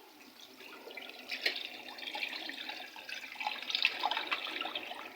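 Water draining out of a Panasonic top-load automatic washing machine started on spin dry: a rushing, splashing water sound that builds from about a second in. The machine is draining normally, its no-drain fault cured.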